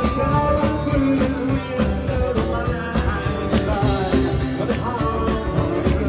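Live blues band playing: a harmonica cupped to a hand-held microphone wails with bending notes over drums and guitar, with a sung vocal.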